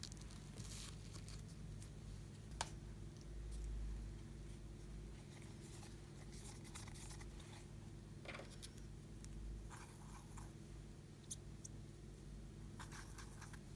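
Faint handling sounds of a powder eyeshadow palette: light taps and rustles, a sharp click about two and a half seconds in, and a makeup brush scratching at the powder near the end, over a low steady hum.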